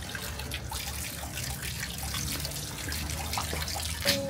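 Water trickling from bamboo spouts and splashing into the stone basin of a shrine's temizuya hand-washing fountain, while a wooden ladle is held under a spout to catch the water. A sharp knock sounds about four seconds in.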